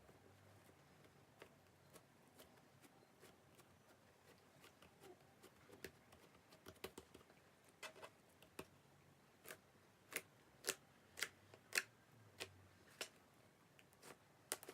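Slime mixed with crushed Banana Kick snack being squeezed and pressed by hand, giving a series of sharp clicks and pops. They start faint and grow louder about halfway through, coming about twice a second near the end.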